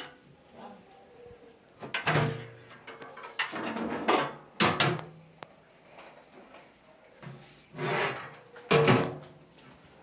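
Front panel of an LG front-loading washing machine, door still attached, being lifted off the cabinet and set down: several bouts of knocking and rubbing as the panel is handled.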